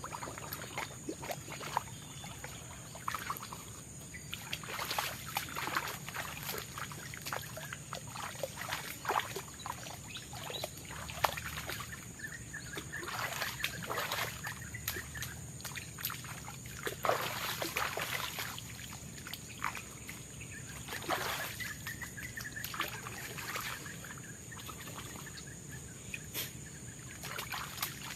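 Water splashing and sloshing at an irregular pace as a person moves about in a river, over a steady high-pitched drone of forest insects.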